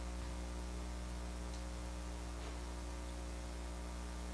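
Steady electrical mains hum with a faint hiss: a low buzz with a stack of even overtones.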